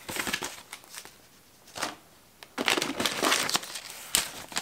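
Plastic lure packages crinkling as they are handled: a short rustle at the start, a single tick near the middle, then a longer stretch of crinkling through the second half.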